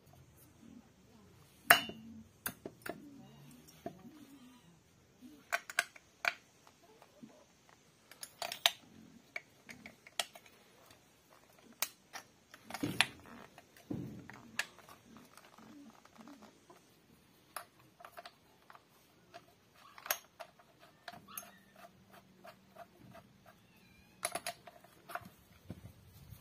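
Irregular metal clicks and clinks as the cylinder and small parts of a 72 cc chainsaw are handled and fitted onto the crankcase, with single sharp knocks, the loudest about two seconds in and again about thirteen seconds in.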